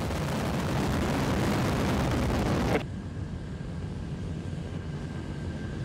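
Terran 1 rocket's first-stage engines roaring on ascent: a loud, hissing roar that cuts off abruptly about three seconds in and gives way to a quieter, duller rumble.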